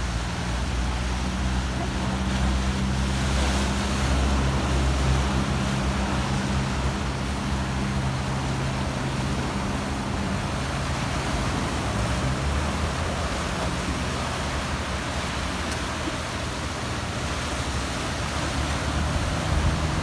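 Sea surf washing and breaking over a rocky shore, a steady rushing wash, with a steady low motor hum underneath.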